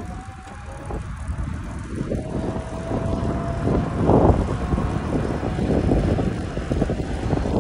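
VanMoof Electrified S e-bike's front hub motor whining under acceleration: a thin whine that rises slightly, holds steady, then fades about four seconds in. Low wind rush on the microphone grows louder as the bike speeds up.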